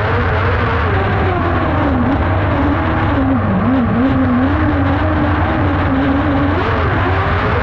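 Kart cross engine heard from inside the cockpit, running hard. The revs drop through a corner a couple of seconds in, stay low, then climb again near the end, over a steady low rumble.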